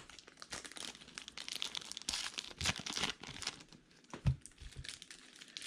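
Plastic wrapper of a baseball card pack crinkling and tearing as it is opened, with cards being handled and a couple of soft knocks.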